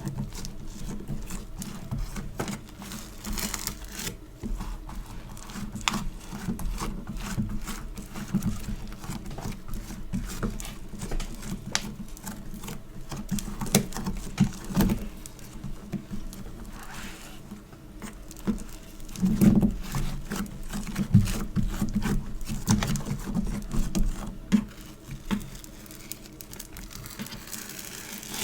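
Hands squishing and pressing a sticky play compound: a dense run of small crackles and clicks, louder for a few seconds about twenty seconds in.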